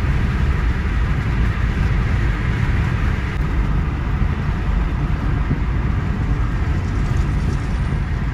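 Steady low rumble of a car driving at highway speed: road and engine noise without a break.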